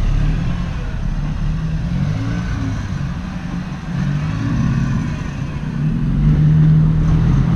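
A motor vehicle's engine running at low revs as it manoeuvres, its pitch wavering at first, then holding steadier and getting louder from about six seconds in.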